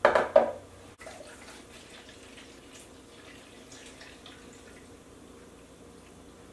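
A brief loud sound at the very start, then apple juice pouring from a plastic jug into a glass measuring cup in a faint, steady trickle.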